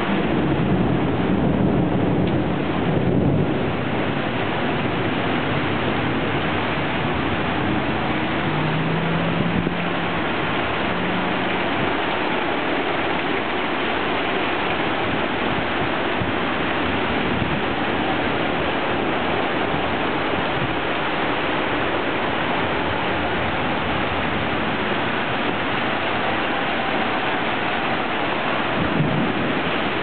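Heavy wind-driven rain in a severe windstorm: a steady, dense rush of downpour and gusting wind, a little louder in the first few seconds.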